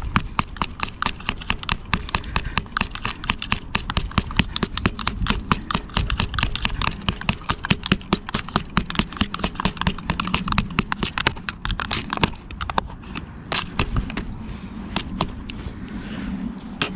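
Worms being chopped up for chopped-worm groundbait: a rapid, regular run of sharp cuts, about five a second, that thins out into scattered cuts over the last few seconds.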